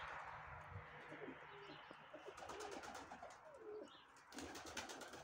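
Domestic pigeons cooing faintly: several short, low coos that bend up and down in pitch. A quick run of sharp clicks comes near the end.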